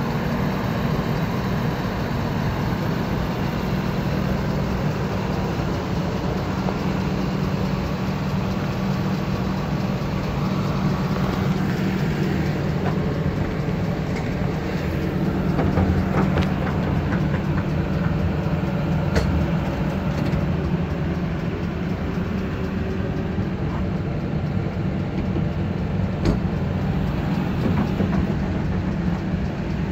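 An engine idling steadily, with a few sharp metal clicks from the service body's compartment latches and doors.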